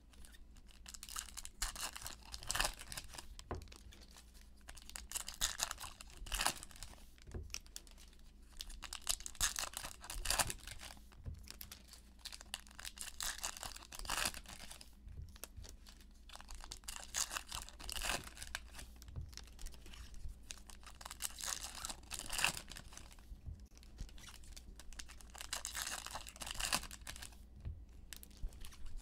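Foil wrappers of Prestige football card packs being torn open and crinkled by hand, with the cards inside being handled: repeated bursts of tearing and rustling with short pauses between them.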